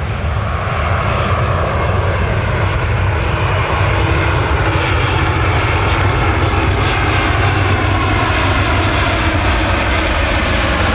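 Airbus A320 airliner on final approach with its landing gear down, its two IAE V2500 turbofans giving a steady jet roar with faint whining tones. The roar grows a little louder over the first few seconds as the aircraft nears, then holds.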